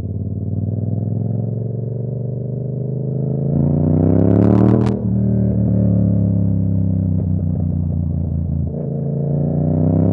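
Yamaha R7's 689 cc parallel-twin engine, through a KO Lightning aftermarket exhaust, accelerating with a rising note. About five seconds in it crackles briefly and dips as it shifts up, then holds a steady note before climbing again near the end.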